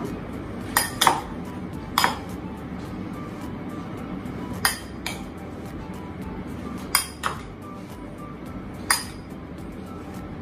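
Metal spoon clinking against a glass bowl as a chickpea salad is tossed and mixed: about eight sharp clinks, spaced irregularly.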